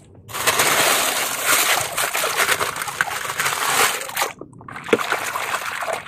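Shallow muddy water splashing and sloshing as a hand stirs through it and lifts out a plastic toy tanker truck. The splashing stops briefly a little past the middle, with a couple of small clicks, then starts again.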